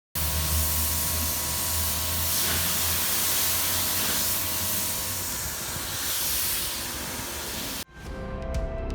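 Steady hiss of a cleaning spray with a low hum underneath, cutting off abruptly near the end; music starts right after.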